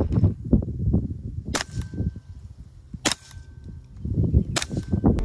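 Hatsan Blitz .30-calibre PCP air rifle fired on semi-auto: three single sharp shots about a second and a half apart, with a low rumbling noise between them.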